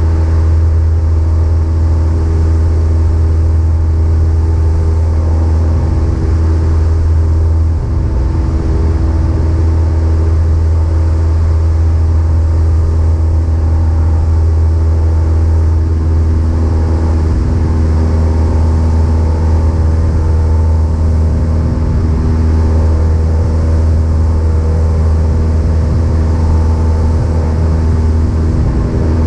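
Cessna 172's piston engine and propeller running steadily at a constant setting: a loud, even drone with a strong low hum.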